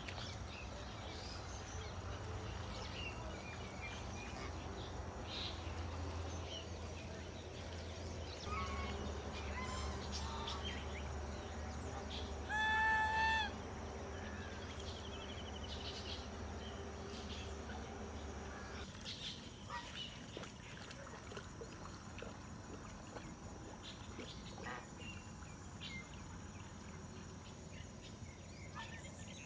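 Pond-side ambience with scattered small bird chirps and a low rumble that stops about two-thirds of the way through. About 13 seconds in, a domestic goose gives one loud honk, about a second long.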